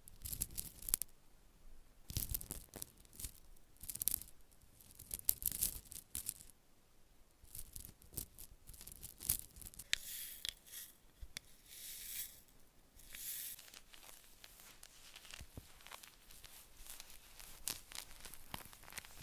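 Close-up crinkling and tearing sounds in irregular bursts, like crinkly packaging or material being handled and torn near the microphone.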